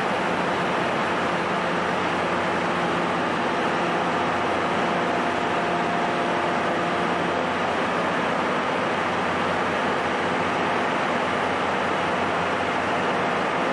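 Steady drone of idling diesel engines from stationary 14 series coach trains, with an even hiss over it. The low hum lines in it fade out about halfway through.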